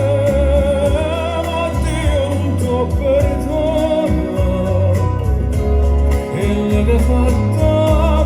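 Recorded Italian song playing from a vinyl record on a turntable: a melody with vibrato over steady bass.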